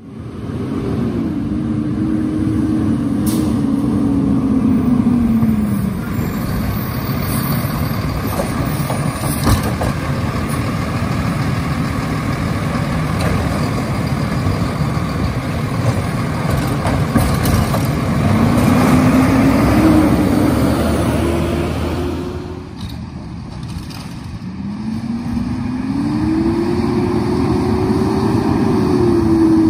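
Kenworth side-loader garbage truck's diesel engine running steadily, its pitch falling and rising several times as it revs down and up. A sharp knock comes about nine and a half seconds in.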